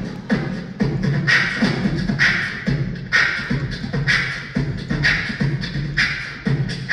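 Beatboxing into a hand-held microphone over a PA: a steady hip-hop beat of low kick sounds about twice a second, with a sharper snare-like hit about once a second.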